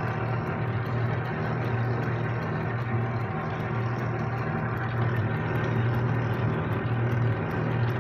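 1944 South Bend 9-inch lathe running under power, a steady motor and drive hum with faint quick ticking about five times a second.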